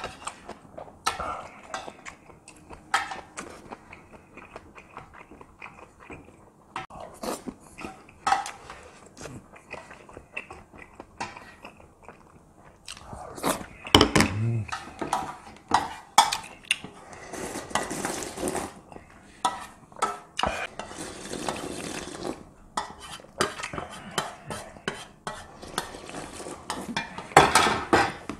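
A metal spoon clinking and scraping against a stainless steel compartment meal tray, with chewing in between.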